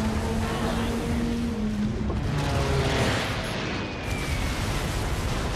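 Film battle sound effects: a dense, continuous wash of anti-aircraft gunfire and shell bursts from a battleship under air attack, with a faint falling whine about three seconds in. Sustained orchestral score plays underneath.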